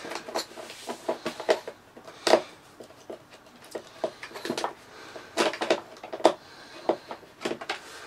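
Screwdriver working screws out of a plastic vacuum cleaner casing, with the plastic body being handled: irregular clicks and taps, with a few louder knocks about two seconds in and again between five and six and a half seconds.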